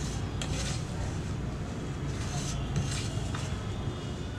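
A hand mixing and squeezing crumbly corn-flour and wheat-flour dough in a steel bowl, with soft scraping and rustling several times. A steady low rumble runs underneath.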